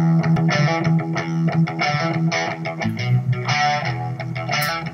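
Background music: strummed guitar over a steady bass line.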